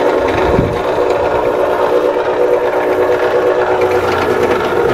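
Maksindo MKS-180SS stainless noodle machine running steadily, its electric motor and rollers drawing a dough sheet through the cutter and turning out noodles, with a steady whine of several tones.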